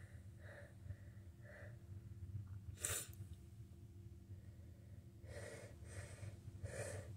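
A person with a head cold breathing and sniffling between sneezes: a few soft breaths, a sharp sniff about three seconds in, then three quick, catching breaths near the end.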